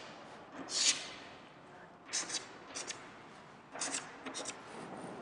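Chalk scratching on a chalkboard in several short strokes, as lines and arrowheads are drawn.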